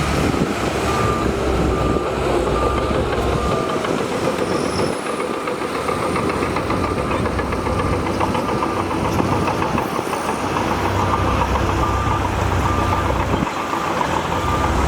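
Heavy diesel earthmoving machinery running steadily, with a reversing alarm beeping about twice a second in the first few seconds and again near the end.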